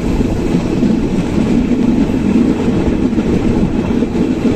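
Passenger train running along the track, heard from aboard the moving coach: a steady, low running noise of wheels on rails.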